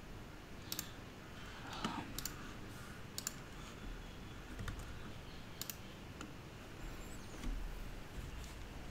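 A handful of sharp computer mouse clicks, some in quick pairs like double-clicks, over faint room noise.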